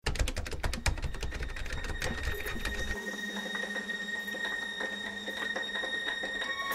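Rapid mechanical clicking, fast and even over a low rumble for about three seconds, then lighter and more spaced clicks over a steady high tone.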